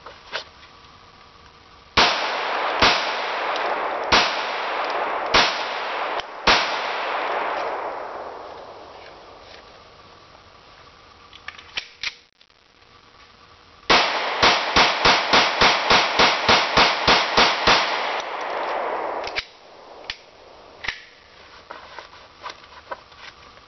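Glock 21 .45 ACP pistol fired five times in about four and a half seconds, the shots echoing and slowly fading. After a few light clicks comes a rapid string of about fourteen shots, roughly four a second.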